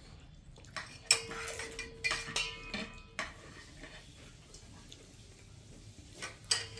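Metal spoons clinking and scraping against ceramic bowls at a meal: a cluster of sharp clinks in the first few seconds and two more near the end.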